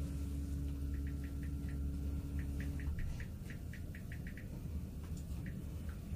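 Inside a Mitsubishi high-speed elevator car as it sets off upward: a steady low hum with a faint tone that stops about three seconds in, and a run of small, quick, high ticks through the middle.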